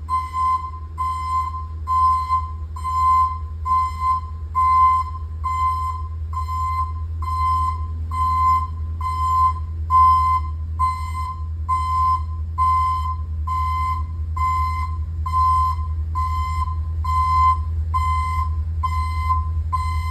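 Ambulance's reversing alarm beeping steadily, a little faster than once a second, while the vehicle backs up, over the steady low rumble of its running engine.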